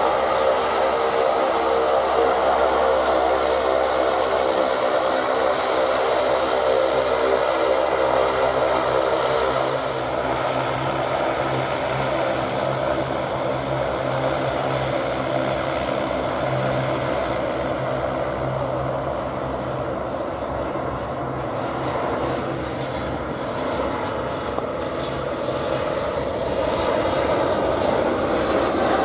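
Aircraft engines running steadily with a hum of several steady tones. The sound is loudest for the first ten seconds, eases off, then builds again near the end.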